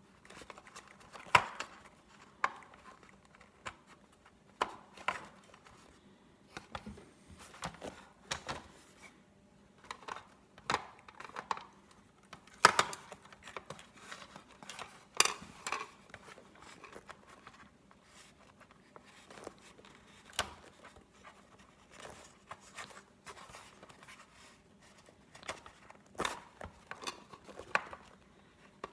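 Irregular small clicks, taps and rustles of the plastic body and fabric skin of a Big Mouth Billy Bass singing fish being handled and fitted back together, with a few sharper clicks among them.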